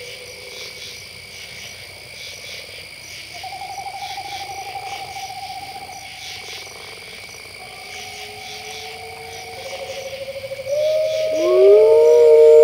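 Wolves howling over a steady chirping night chorus: one long howl comes in about three seconds in, and several louder, overlapping howls rise near the end.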